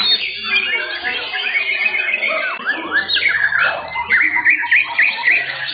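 Several white-rumped shamas singing at once in overlapping rapid whistles, trills and sweeping notes. The song gets louder about four seconds in.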